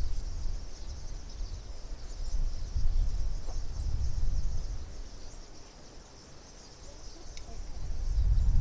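Wind buffeting the microphone in gusts, easing off about six seconds in and picking up again near the end, over a steady high-pitched chirring chorus.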